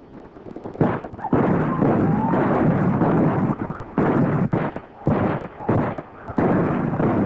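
Gunfire from an ambush: several volleys of shots, each starting suddenly, with a thick, sustained clatter between them.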